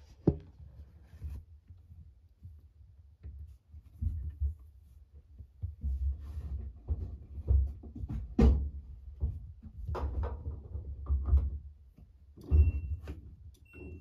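Muffled, irregular low thumps and knocks heard from inside an empty washing machine drum, with a short high beep twice near the end.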